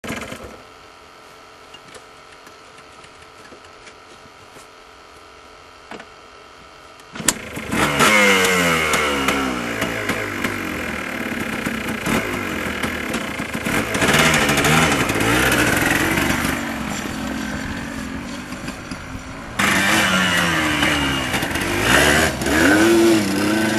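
Yamaha Blaster ATV's two-stroke single-cylinder engine, faint and steady for about the first seven seconds, then revved hard again and again with the pitch sweeping up and down. Near the end it surges louder as the quad pulls away under throttle.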